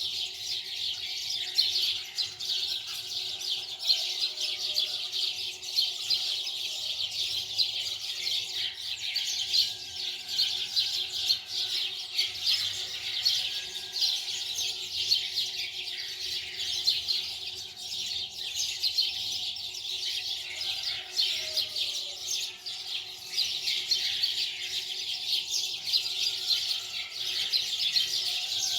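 A dense chorus of many small birds chirping without pause, with a faint steady hum beneath.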